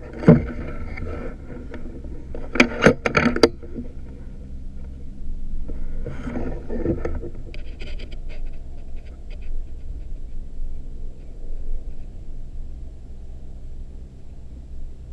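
A single shot from an FX Impact M3 .30-calibre PCP air rifle, a sharp crack just after the start. About three seconds in come three quick sharp clicks.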